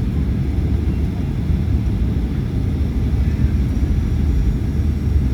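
Aircraft noise during a landing: a steady, loud low rumble with no distinct events.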